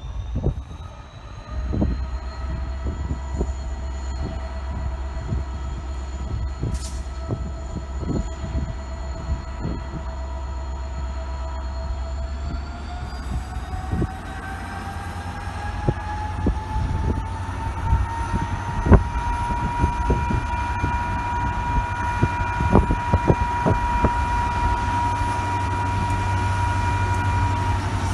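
Class 59 diesel locomotive hauling a train of hopper wagons slowly through the station under power. There is a low diesel rumble and an engine whine that rises in pitch about halfway through and then holds steady, over repeated clicks of wheels over the rails.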